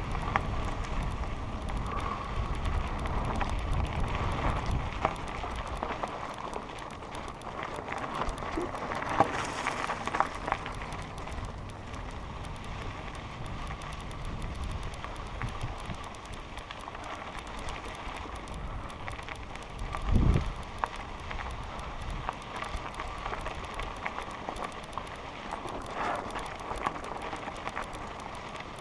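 Mountain bike rolling over a loose dirt and gravel trail: tyres crunching on gravel and the bike rattling over the rough surface, with wind noise. A low thump about twenty seconds in.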